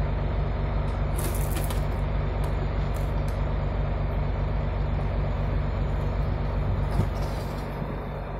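A truck engine idling steadily, with a short hiss about a second in and a single knock near the end.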